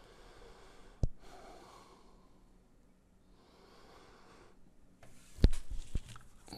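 Breathing close to the microphone in soft, hissy breaths, with a sharp tap on the desk about a second in. Near the end comes a louder knock and two smaller clicks as a hand reaches across the desk for the remote control.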